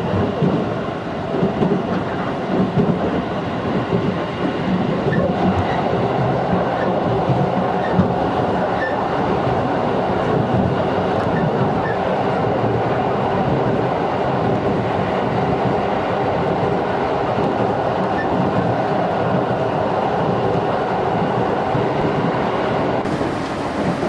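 JR 211 series electric multiple unit running at speed, heard from inside the passenger car: a steady rumble of wheels on rail with clickety-clack from the rail joints, and a faint steady whine that sets in about five seconds in.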